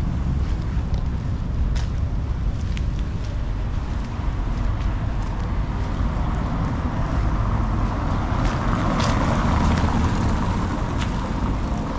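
Street ambience with a steady low rumble of traffic and wind on the microphone. A car passes with its tyres hissing on the wet road, swelling about nine seconds in and then fading.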